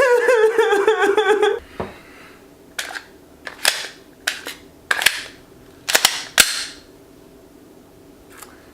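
A drawn-out wailing voice on a wavering pitch breaks off about a second and a half in. Then comes a string of sharp gunshot bangs, about eight over four seconds, some in quick pairs.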